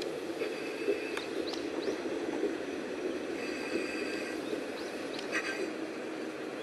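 Sanriku Railway 36-100/36-600 diesel railcar drawing slowly into the station, its diesel engine running steadily. Short high-pitched squeaks and chirps come and go over it.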